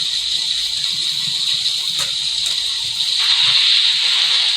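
Recorded rain sounds playing as a background track: a steady, even hiss of rainfall, with a couple of faint clicks about two seconds in.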